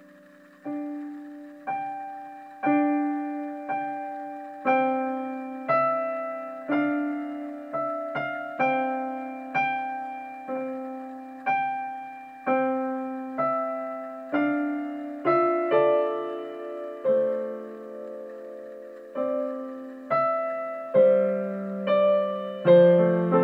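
Slow, gentle solo piano music: single notes and chords struck about once a second, each ringing and fading, with fuller, lower chords near the end.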